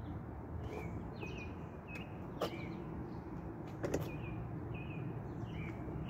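Two light knocks, about two and a half and four seconds in, as the hatchback's cardboard trunk floor panel is handled, over steady outdoor background noise. A small bird chirps briefly several times in the background.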